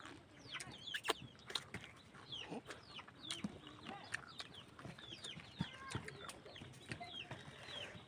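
Many short, falling bird calls, like chickens clucking and chicks peeping, repeating irregularly, mixed with occasional sharp clicks.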